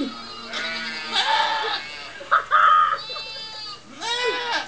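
Goats bleating, played back through computer speakers: about four separate calls, the loudest a little after halfway through.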